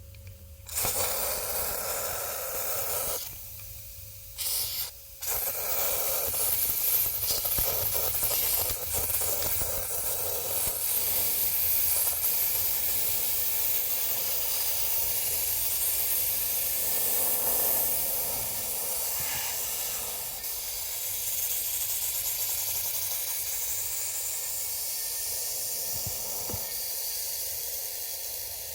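Pressurised spray hissing into a car's air-conditioning evaporator during evaporator cleaning; it starts about a second in, stops briefly twice in the first five seconds, then runs steadily.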